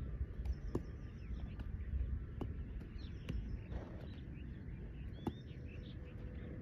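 Outdoor ambience: a steady low rumble with faint bird chirps above it and a few sharp clicks.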